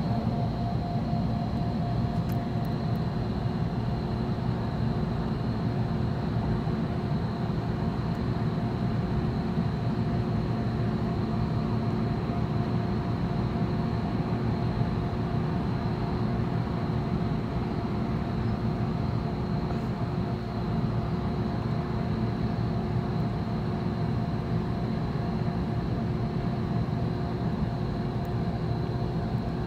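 Steady low mechanical hum and rumble with a few faint steady tones on top, unchanging throughout.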